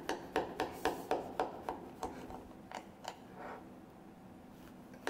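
A knife sawing down through the crisp baked crust of an Italian Easter pie. It makes quick short strokes, about four a second for the first two seconds, then a few slower strokes, and stops about four seconds in.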